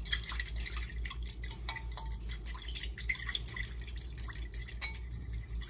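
A utensil rapidly and irregularly clicking against a bowl as a lemon vinaigrette of mustard, lemon juice and olive oil is whisked together.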